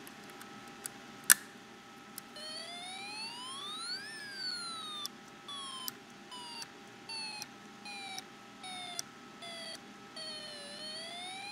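Snap Circuits speaker module sounding an electronic fire-engine siren: a tone that rises and falls in pitch, breaking into short on-off pieces through the middle, then rising again near the end. A single sharp click about a second in is the loudest sound.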